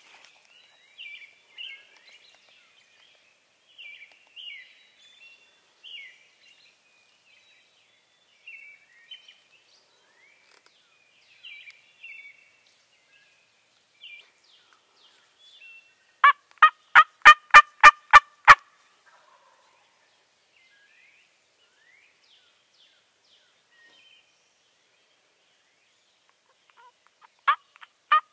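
Wild turkey gobbler gobbling: a loud, rapid rattling gobble about halfway through, and another starting near the end. Faint songbird chirps come before the first gobble.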